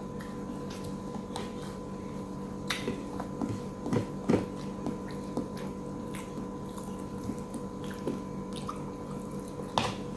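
A person eating a meal of fried catfish close to the microphone: wet chewing and lip smacks with scattered small clicks, the loudest pair of smacks about four seconds in, over a steady electrical hum.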